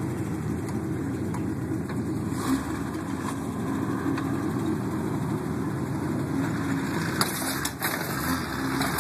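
Off-road vehicle engine running steadily, with a few short sharp knocks about seven to eight seconds in.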